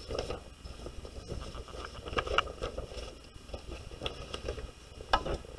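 Quiet room tone: a low steady rumble with a few faint clicks and small rustles.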